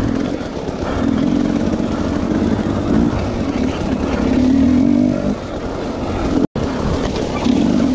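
Dirt bike engine running under load as the bike is ridden along a wooded trail, its pitch rising and falling with the throttle. The sound cuts out for an instant about six and a half seconds in.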